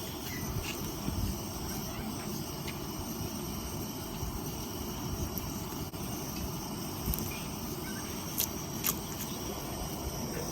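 Steady low rumble and hiss of a gas camp stove burning under a pan of heating palm oil, with a few light clicks, two of them close together near the end.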